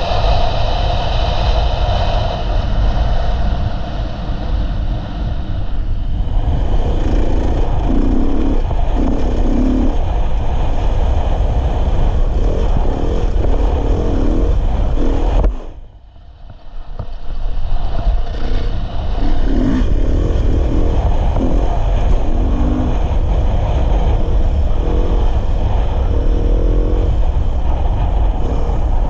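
Dirt bike engine running as the bike rides along a dirt trail. The sound drops away sharply for about a second about halfway through, then comes back.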